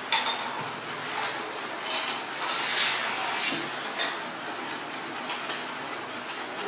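Small plastic pegs clicking and clattering as they are picked up from a tabletop and set into a plastic peg board, a handful of light clicks spread through the moment.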